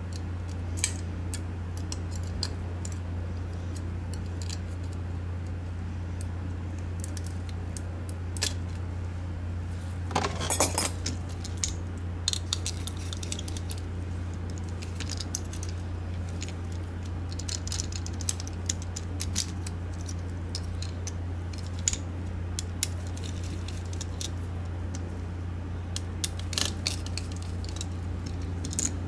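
Scattered clicks and clatter of small plastic mouse parts and a metal pick being handled as a Logitech G604 gaming mouse is taken apart, with a denser burst of rattling about ten seconds in. A steady low hum runs underneath.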